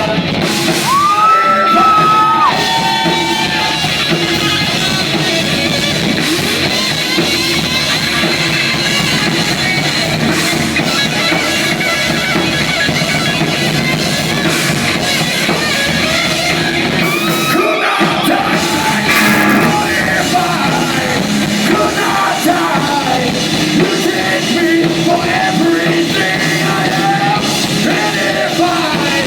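Loud rock music with distorted guitar and yelled or sung vocals, briefly dropping out just before the 18-second mark.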